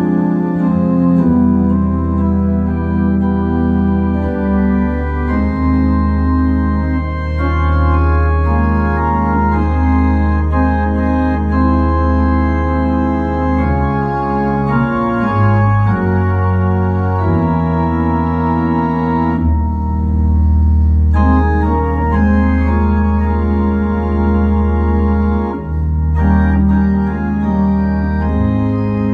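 Keyboard music in an organ-like sound: sustained chords over long held bass notes that change every few seconds.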